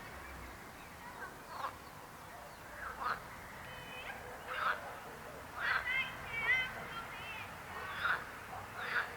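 Frogs croaking in a chorus: separate loud croaks about once a second over a steady background of many more distant calls, with a few higher pitched notes about six seconds in.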